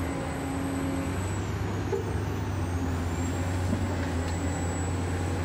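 Radio-controlled model excavator's drive and hydraulics running steadily with a low machine hum as it digs and lifts a bucket of sand. A faint high whine dips in pitch for a moment about a second and a half in, then recovers.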